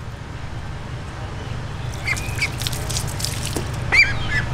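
Young domestic duck giving two high, squeaky calls, one about two seconds in and one near the end, with a few short clicks in between over a steady low hum.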